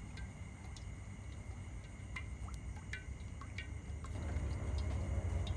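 Vegetable oil pouring in a thin stream from a plastic bottle into a wok of oil, getting louder about four seconds in. Short chirps repeat in the background.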